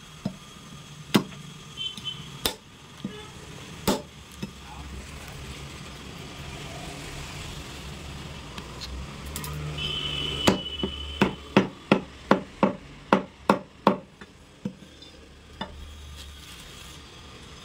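Butcher's cleaver chopping goat meat and bone. A few scattered blows come first, then about ten seconds in a quick run of about ten strikes, roughly three a second, over a steady low hum.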